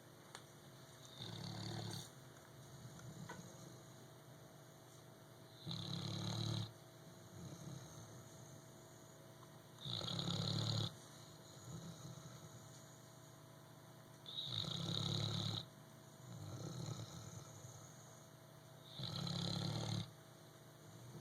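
A sleeping pet snoring. There are five loud snores about four to five seconds apart, each about a second long, with softer breaths between them.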